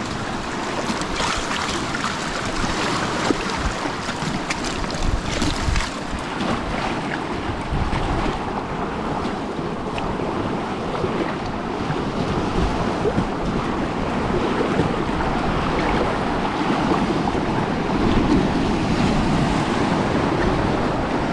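Rushing whitewater of a creek rapid, a steady churning wash of water as a small one-man boat runs through it, a little louder near the end.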